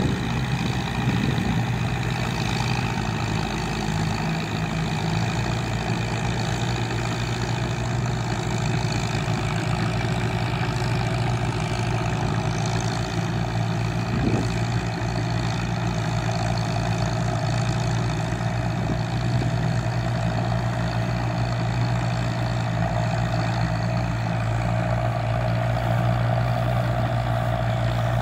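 Crawler tractor's engine running steadily as it tills a muddy rice paddy, a constant low hum that holds the same pitch and level throughout.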